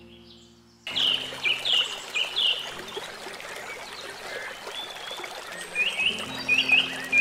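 Birds chirping: short, repeated sweeping calls in small clusters over a steady background hiss, starting abruptly about a second in. Soft music is heard before the chirps and comes back low near the end.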